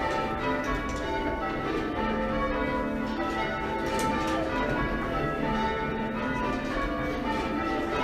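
A ring of six church bells rung full-circle, struck one after another in a steady, unbroken sequence of overlapping ringing tones. The front five are 1804 bells by Thomas Mears I of Whitechapel; the tenor, about 8½ cwt in A-flat, was recast in 1935 by Mears and Stainbank.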